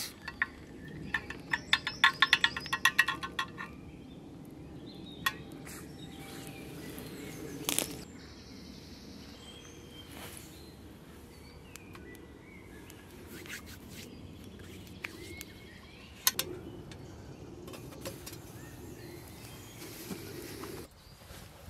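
Camp cooking sounds at a small wood-burning stove with a kettle: a quick run of sharp clicks and clinks about a second in, then scattered single clicks and knocks over a low steady fire noise, with faint birdsong.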